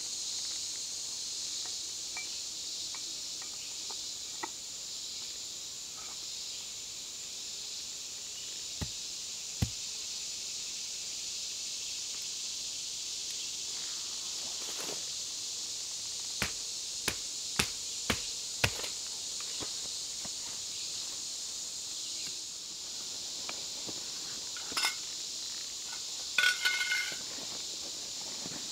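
Steady high-pitched insect chorus in summer woods. Over it come a few sharp cracks, five in quick succession about two-thirds of the way in, and a brief ringing clatter near the end.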